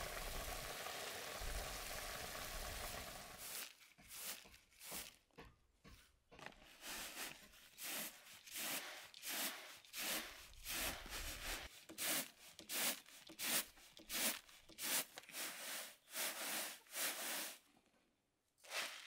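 Food sizzling in a pan for the first few seconds, then stopping suddenly. A rhythmic scraping follows, about two strokes a second, until near the end.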